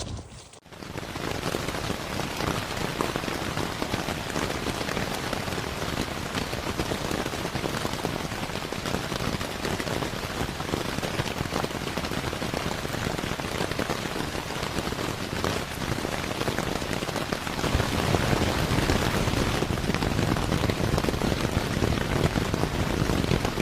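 Heavy rain falling on a tent, a steady hiss of dense drop hits on the fabric, growing louder about eighteen seconds in.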